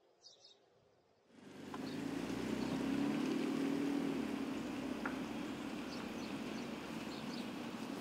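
A car driving away along a wet street: engine and tyre noise come in about a second in, are loudest a couple of seconds later and ease only slightly. Faint bird chirps sound over it.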